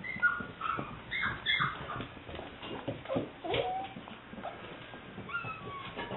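Seven-week-old English Springer Spaniel puppy whimpering in short, high-pitched whines: several in quick succession in the first two seconds, one sliding whine midway, and a few more near the end. Faint clicks fall between the whines.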